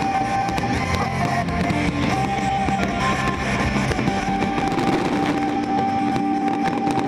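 Music with guitar plays over fireworks crackling and popping in a dense, continuous stream.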